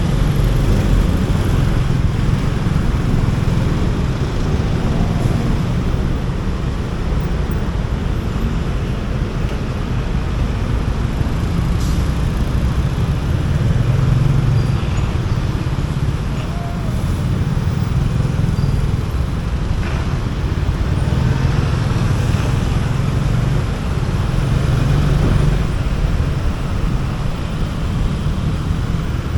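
A motorcycle riding through city traffic: engine and road noise with a steady low rumble throughout.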